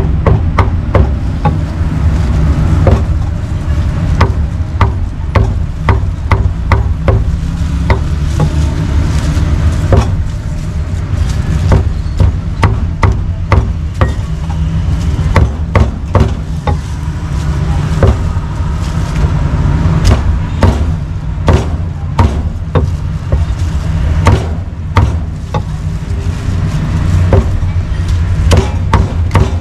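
Cleaver chopping pork on a chopping block: repeated sharp chops in irregular runs, one to three a second, over a steady low rumble.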